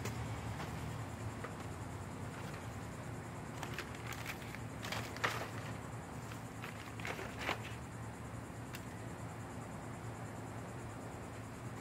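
Pieces of dry wood and kindling being handled and set into a cinder block rocket stove: a few light clicks and knocks, the sharpest about five seconds in, over a steady background of insects.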